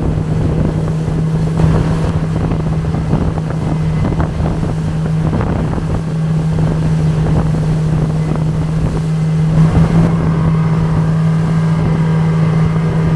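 Small speedboat's engine running at a steady pitch under way, with wind buffeting the microphone.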